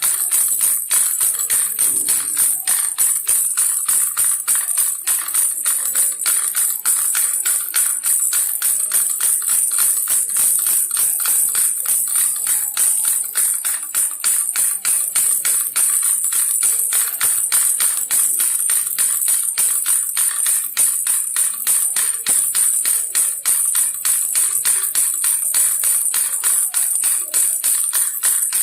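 Baby rattle shaken nonstop in a quick, even rhythm, a bright jingling rattle.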